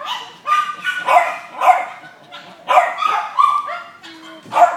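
A dog barking repeatedly in short, high-pitched barks, about one every half second, with a brief break about halfway.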